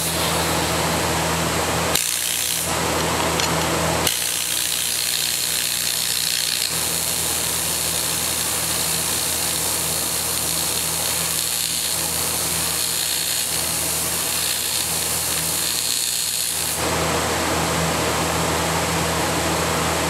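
AC TIG welding arc from a Miller Syncrowave 250 on aluminum while tacking a can together: a short arc about two seconds in, then a long steady arc from about four seconds in that cuts off sharply near the end. The welder's steady hum carries on underneath.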